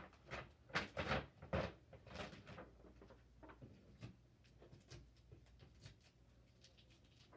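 A quick run of knocks and clatters over the first two seconds or so, the loudest about a second in, then scattered faint clicks and ticks: things being handled and moved about.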